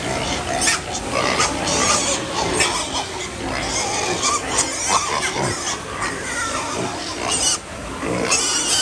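A group of piglets grunting and squealing over one another, with many short calls overlapping and no pause.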